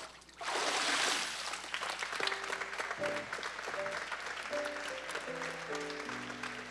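Water splashing in a baptistery as a person is immersed and raised, together with a congregation applauding, loudest about a second in. About two seconds in, music begins with held notes over the continuing applause.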